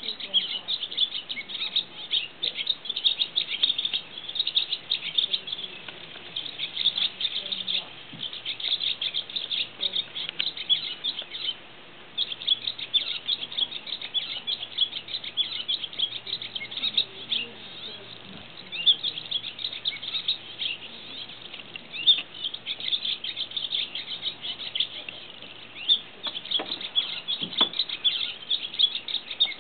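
Barn swallow singing while perched: a long run of rapid, chattering twitters, broken by a few brief pauses.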